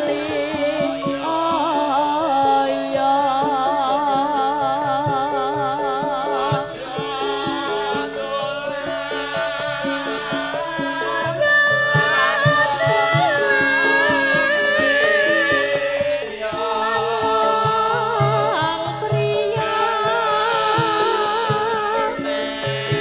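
Javanese gending music: a wavering, ornamented melodic line held over a steady pattern of low drum strokes.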